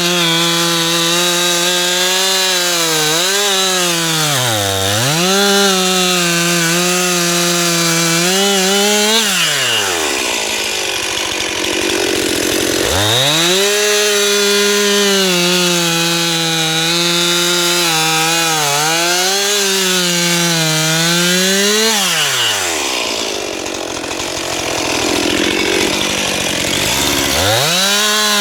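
Stihl MS 261 two-stroke chainsaw bucking a felled tree: it runs at high revs under load, its pitch dipping sharply now and then as it bogs in the cut. It drops back to idle twice, about ten seconds in and again about twenty-two seconds in, and revs back up each time.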